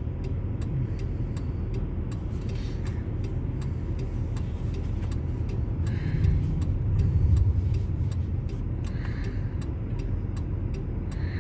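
Car engine idling, heard inside the cabin, with a steady ticking of a few clicks a second.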